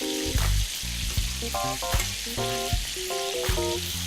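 Shark and plantain kebabs sizzling as they grill, a steady hiss, under background music with notes that change in steps and a regular beat.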